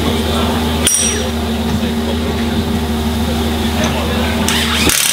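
A steady low mechanical hum with background voices. Near the end comes a burst of high rattling from a battery impact wrench on the centre-lock wheel nut of a Pagani Huayra R.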